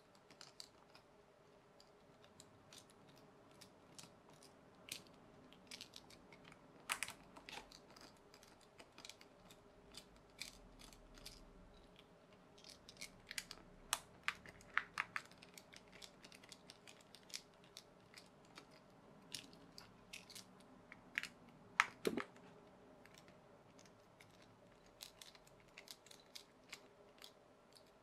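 Faint, irregular clicks and ticks of a precision screwdriver turning small screws out of a clear plastic K'Nex pull-back motor housing, with a sharper knock about three-quarters of the way through.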